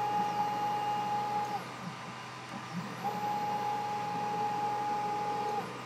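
The stepper motor drives the 3018 CNC's Y-axis along its SFU1204 ball screw in two jog moves. Each move is a steady whine that ramps up at the start and down at the stop. The first lasts about a second and a half and the second about two and a half.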